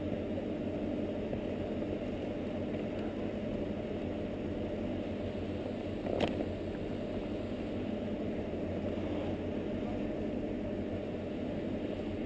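Steady low wind rumble on an action camera's microphone, driven by the skier's speed down the slope, with a single short knock about six seconds in.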